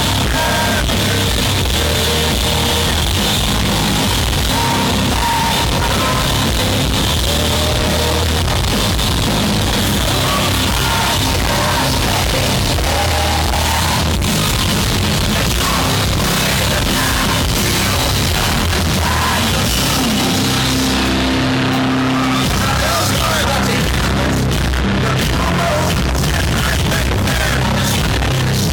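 Loud live hard rock band playing, with distorted electric guitars, drums and a singer. The phone's recording is overloaded, so the loudness stays flat against its ceiling.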